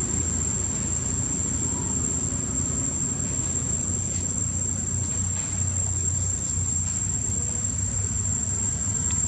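Steady outdoor background: a continuous high-pitched insect drone over a low, even rumble, with no clear calls from the monkeys.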